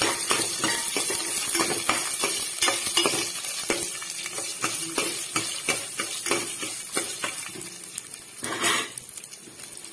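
A spatula stirring and scraping through frying dal, coconut pieces and green chillies in a stainless steel pan, with irregular clinks and scrapes over a faint sizzle of oil. Near the end there is one short, louder scrape.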